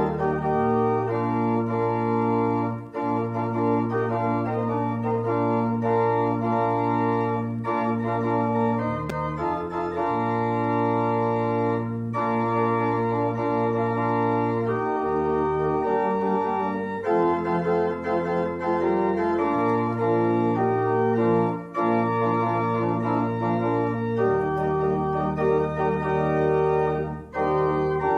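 Organ playing held chords, with a low pedal bass note that changes every few seconds.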